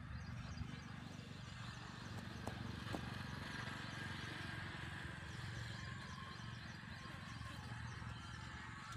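Outdoor ambience: wind rumbling on the microphone, with faint, rapid, high chirping running through it and two small clicks about two and a half and three seconds in.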